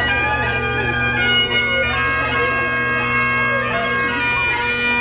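Bagpipes playing a tune over their steady drones, with voices talking underneath.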